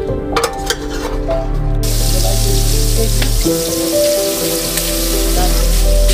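Sliced onions frying in hot fat in a large metal cooking pot: a steady sizzle that sets in about two seconds in and holds, over background music with held notes. A few light clicks come before the sizzle starts.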